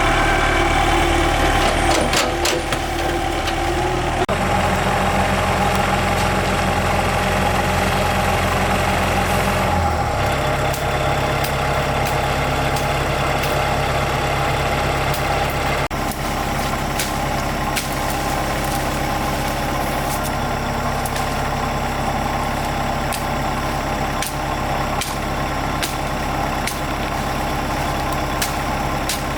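Excavator's diesel engine running steadily. Its pitch shifts about four seconds in and again about ten seconds in as the load changes. Scattered sharp clicks sound over it, more often in the second half.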